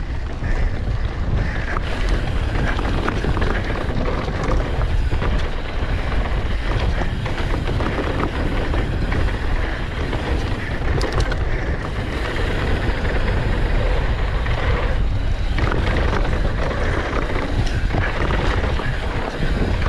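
Wind rushing over the camera microphone and a mountain bike's tyres rolling fast over dry dirt and loose gravel, with many small clicks and knocks from the bike over bumps.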